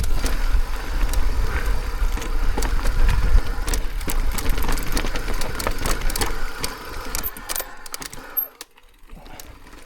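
Mountain e-bike riding over a rough trail: heavy wind rumble on the microphone, tyres crunching over stones and frequent clicks and rattles from the bike. It dies away about eight seconds in.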